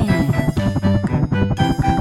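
Upbeat cartoon background music with a steady beat.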